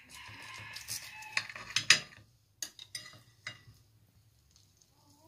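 Knife and fork cutting a slice of cuscuz on a glass platter: a scraping sound for about two seconds with sharp clicks of metal on glass, then a few lighter clicks before it goes quiet.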